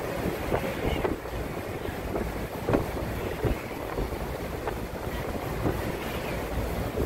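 Wind buffeting the microphone on a moving ferry's open deck, with irregular gusty thumps, over a steady low rush of the boat's passage through the water.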